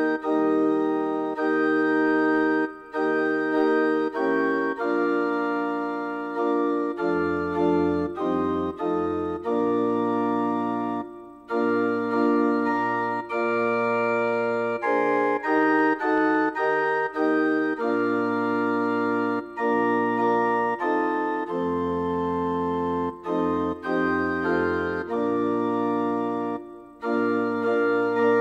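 Organ playing sustained chords over a low bass line that moves from note to note, with three short breaks between phrases.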